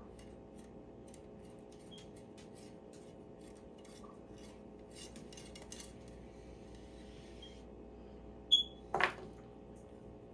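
Cleaning the barrels of a Lanber 12-gauge shotgun: a run of short rubbing and scraping strokes on metal. Near the end come a ringing metallic clink and then a louder knock.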